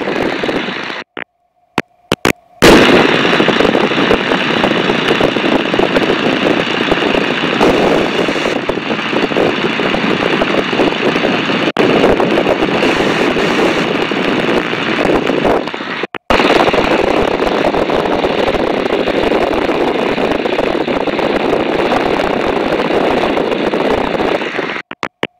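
Steady rush of wind and engine noise in a de Havilland Tiger Moth's open cockpit in flight. It cuts out completely for about a second and a half near the start and again for a moment in the middle.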